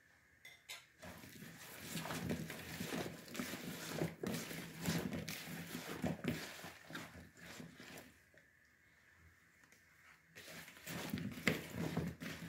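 Hands tossing and rubbing masala-coated raw potato wedges in a plastic bowl: irregular handling sounds of the wedges knocking and sliding against each other and the bowl, in two spells with a pause of about two seconds between.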